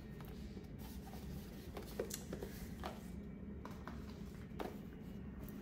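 Soft rustling and a few light ticks and taps as a small cardboard gift box is handled and its satin ribbon is untied and slid off.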